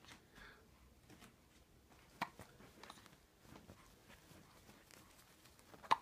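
Baby hiccuping: two short, sharp hiccups, about two seconds in and again near the end.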